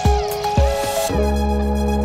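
Electronic background music: a kick drum beat with gliding synthesizer notes, giving way about a second in to a held, deep synth bass chord.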